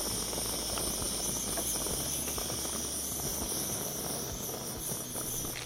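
MSR International camp stove burning under a kettle of water: a steady hiss from the burner. A few faint clicks come from the small plastic parts of a portable espresso maker being handled.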